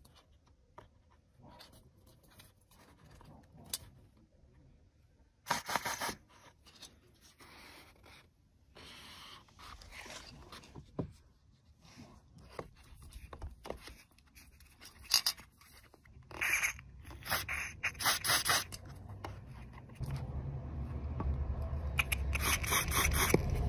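Short hisses of a silicone grease aerosol can sprayed at the door seal and latch, among scraping and rubbing handling noises on the rubber seal and door. A low steady rumble comes in near the end.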